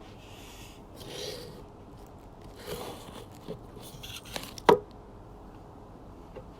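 Pipe wrench scraping and rubbing against the valve of a CO2 bottle held in a vise, in a few short scrapes, with one sharp click about three-quarters of the way through.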